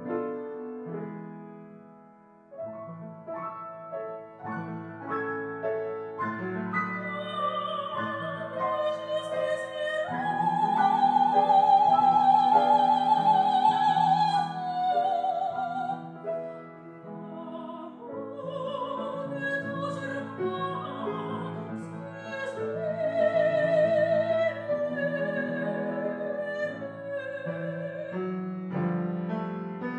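Operatic soprano singing with wide vibrato over piano accompaniment. The piano plays alone at first, and the voice enters about seven seconds in. She holds a long, loud high note in the middle, then descends into softer phrases, and the piano is alone again near the end.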